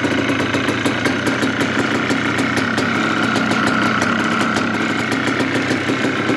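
1996 Yamaha Blaster's single-cylinder two-stroke engine idling steadily, with a regular sharp ticking knock through it. The owner takes the knock for piston slap and fears the piston is ruined.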